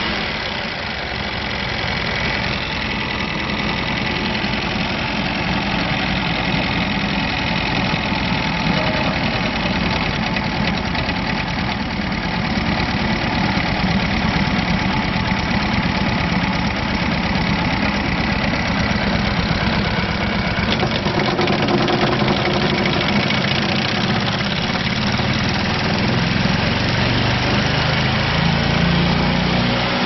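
Kohler Command Pro 27 V-twin engine of a Vermeer BC600XL wood chipper running steadily. It dips briefly about a second in, and its note rises near the end.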